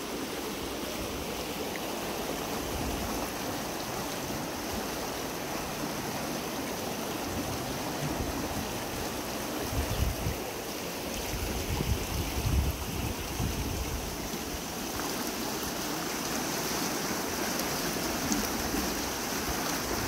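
Water rushing steadily in a small, shallow stream channel, with a few low rumbles of wind on the microphone in the middle.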